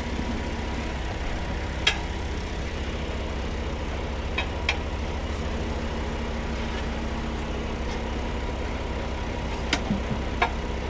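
An engine idling steadily, with a handful of sharp metallic clinks from steel tire bars working a truck tire's bead onto the rim.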